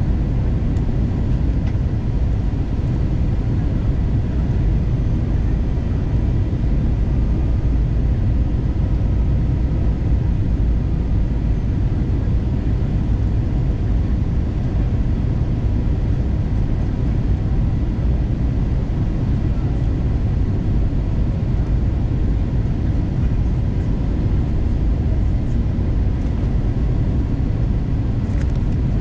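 Steady cabin noise inside an Airbus A321-231 airliner in flight on approach: a deep, even rumble of airflow and its IAE V2500 turbofan engines, with a few faint steady hums above it.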